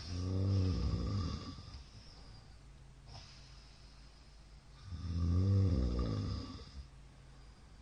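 A middle-aged man snoring loudly: two long snores about five seconds apart, with quieter breathing between them.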